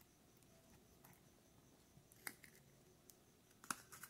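A few faint clicks and taps from small dip powder jars being handled and set down, with the sharpest click about two seconds in and another near the end.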